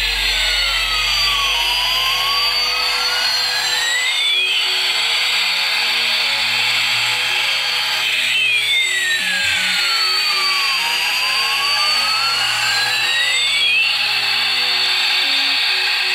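Electronic jet-engine sound effect from a battery-powered toy Airbus A380: a steady jet-like hiss with a whine that sweeps down and back up, twice.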